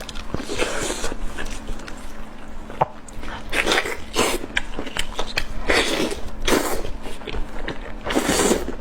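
Close-miked eating sounds: irregular chewing and biting noises with mouth smacks, a few louder ones in the second half.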